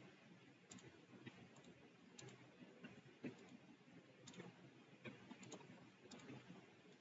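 Faint computer mouse clicks at irregular intervals, a few seconds apart at most, against near silence.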